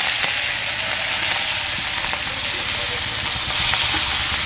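Shrimp sizzling in hot mustard oil in a karai, freshly dropped in: a loud, steady frying hiss that swells again about three and a half seconds in.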